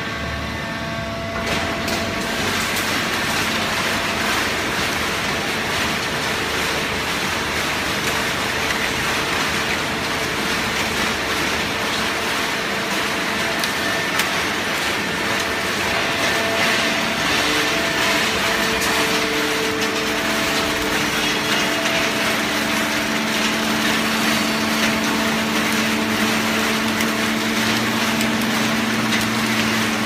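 Automatic horizontal hydraulic baling press running: loud, steady machine noise with a low hum, a little louder from about a second and a half in.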